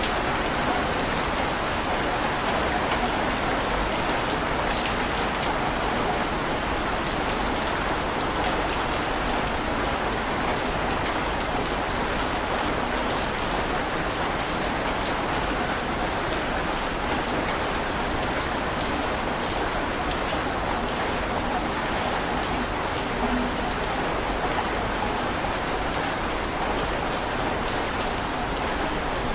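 Heavy rain falling steadily: an even hiss of rain with individual drops ticking through it.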